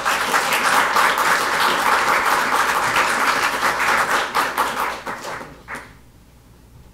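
Audience applauding, many people clapping at once, dying away about five to six seconds in.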